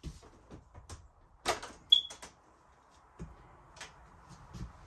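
Knocks, thuds and clatter of things being moved and handled during a camper clean-out, with a short high squeak about two seconds in.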